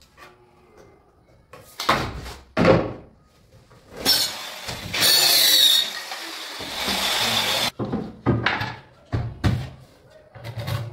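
Wooden knocks and thuds from plywood cabinet work, a few sharp strikes about two seconds in and a cluster near the end, with about four seconds of loud hissing noise in the middle.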